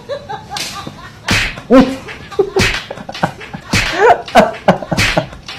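A man laughing hard in a series of loud breathy bursts, about one a second.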